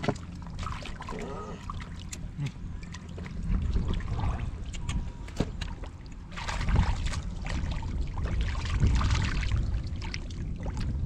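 Muddy water splashing and sloshing as hands grope through the mud for fish, in irregular bursts, louder about two-thirds of the way through, over a steady low rumble.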